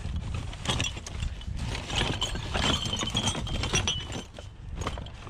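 Thin metal frame clattering and scraping against the bin and the shoes and bags piled in it as it is worked loose, a quick run of knocks and rattles with a thin metal squeal about halfway through.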